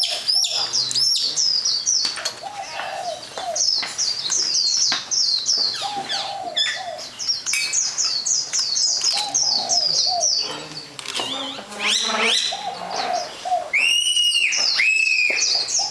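Small birds chirping: quick, high, repeated chirps throughout, with two louder, clear whistled calls near the end.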